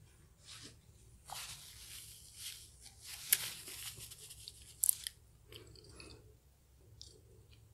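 Paper tissue rustling and crinkling close to the microphone as a mouth is wiped, with two sharp crackles in the middle.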